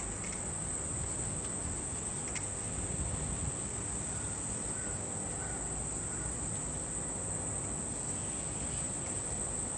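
Steady high-pitched insect chorus over an even background hiss, with a few faint chirps in the middle.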